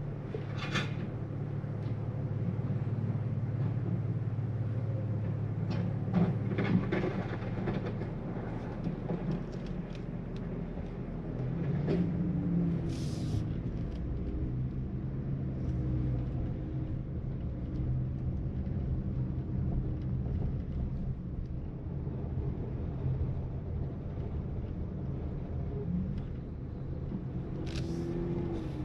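Dodge Challenger's engine and tyre noise heard from inside the cabin while it creeps along at low speed, a steady low hum. A few brief knocks and a short hiss about 13 seconds in.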